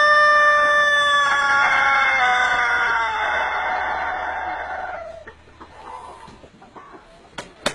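Rooster crowing one extremely long crow. A steady held note that, about a second in, starts to waver and slide down in pitch, trailing off about five seconds in. A couple of short sharp sounds come right at the end.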